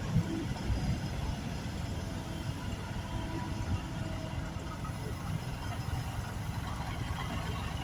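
Diesel engine of a loader running steadily at low revs, a low, even rumble with a couple of small knocks about a second in.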